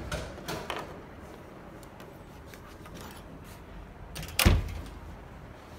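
A door being opened, with a few light clicks and knocks, then a single heavy thump about four and a half seconds in.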